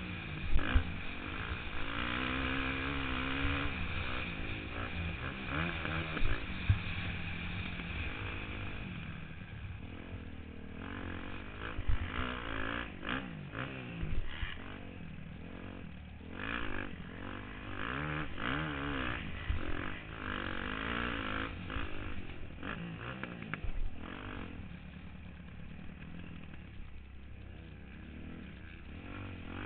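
Motocross dirt bike engine ridden hard on a dirt track, heard from a helmet-mounted camera. The revs rise and fall over and over as the rider opens and closes the throttle, with a few sharp knocks standing out, the loudest about a second in.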